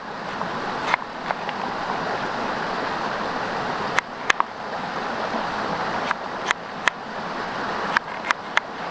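Creek water rushing steadily, with about ten short, sharp clicks and pops scattered over it, some in quick pairs or threes.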